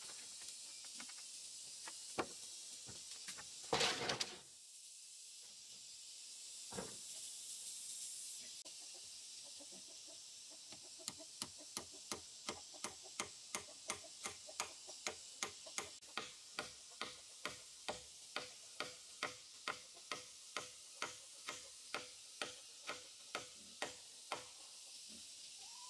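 A hammer striking at a log post-and-crossbar joint, steady blows about two a second with a slight ring, starting about eleven seconds in. Before that there is a single loud clatter about four seconds in, over a steady high hiss.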